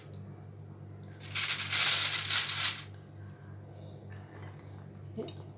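Fruit being tipped into a glass bowl of cut fruit and orange juice: a rustling, pattering burst about a second and a half long, starting a little over a second in, over a steady low hum.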